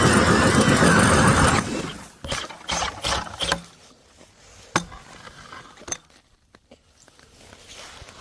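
Power ice auger running under load, its pitch wavering, then shutting off about a second and a half in. Scattered clinks and knocks follow.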